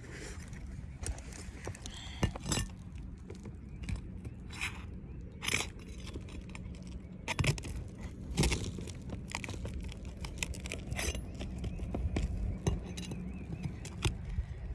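Asphalt roof shingles being worked loose by hand, with irregular crackles, scrapes and tearing as their sealant strips are broken and a shingle is pulled out. A few sharper clicks and crunches stand out, over a steady low rumble.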